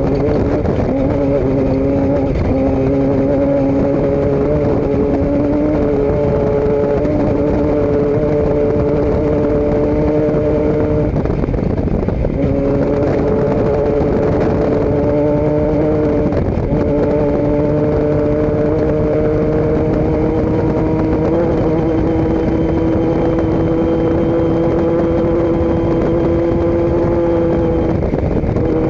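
A motor vehicle's engine running steadily at speed. Its note breaks off briefly about 11 and 16 seconds in, then climbs slowly in pitch.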